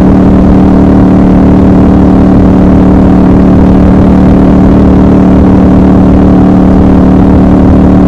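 Triumph Scrambler 1200 XC's 1200 cc parallel-twin engine running at a steady cruising speed, its note holding one constant pitch, over road and wind noise.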